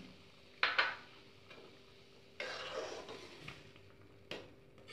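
A metal ladle clinking against a metal kadai twice, about a second in and again near the end, with a second or so of stirring through simmering curry in the middle.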